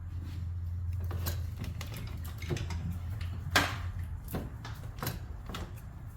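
Scattered clicks and knocks of metal parts as a turbocharger is worked loose from the engine, with one sharper knock about three and a half seconds in, over a low steady hum.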